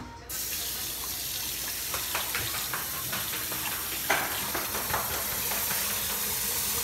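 Kitchen faucet turned on about a third of a second in, water running steadily into a stainless steel sink, with a few light knocks.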